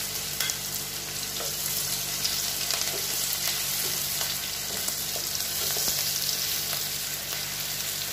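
Chopped onions and green chillies sizzling steadily in hot mustard oil in a nonstick kadhai, with a wooden spatula stirring and scraping against the pan in scattered small clicks.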